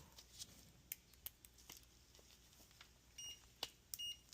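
Multimeter continuity tester beeping twice briefly, about three and four seconds in, after a few faint clicks of the probes touching the treadmill control board's fuse: the fuse conducts and is good.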